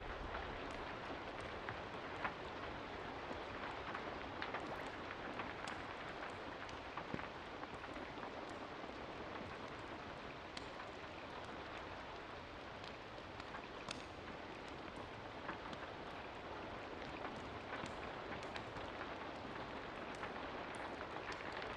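Steady rain falling, an even hiss with scattered short, sharp clicks through it.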